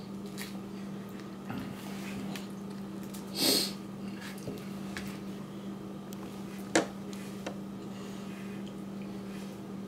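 Quiet room with a steady low hum, and the small mouth and hand noises of a toddler eating cupcake and licking his fingers: a short breathy sniff a bit over three seconds in, a sharp click near seven seconds, and a few faint ticks.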